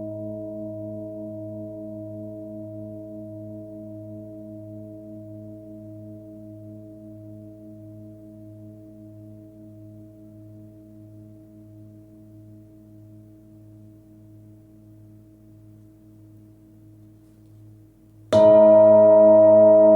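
A 26 cm Nepalese singing bowl with a deep fundamental near 107 Hz ringing out, its overtones pulsing slowly as the tone fades away. About 18 seconds in it is struck again and rings out loud and full.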